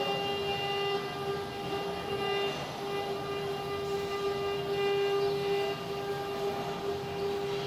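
CNC stone-carving machine's spindle motor running with a steady high whine over a rough grinding noise, the pitch dipping briefly about two and a half seconds in.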